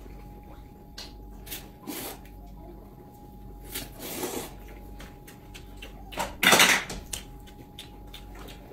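People slurping instant noodles at the table: several short slurps, with one long, much louder slurp about six and a half seconds in.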